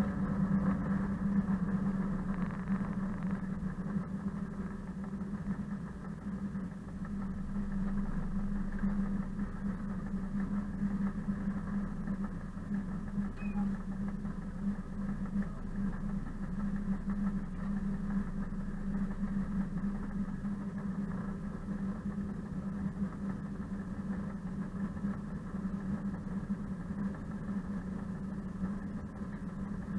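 ČD class 742 diesel-electric locomotive's six-cylinder ČKD diesel engine running steadily, heard close from outside the hood as the locomotive rolls along, a constant drone with a strong low hum.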